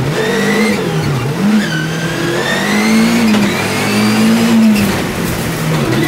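A rallycross car's engine heard from inside the cockpit while racing. The revs rise and fall several times as the driver accelerates, changes gear and lifts, and a high whine climbs along with the engine on the longer pulls.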